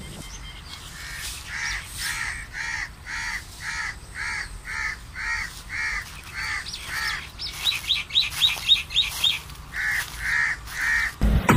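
A crow cawing over and over in evenly spaced harsh calls, about two to three a second. In the middle the caws give way to a quicker run of about eight shorter, higher-pitched calls, and three more caws follow near the end.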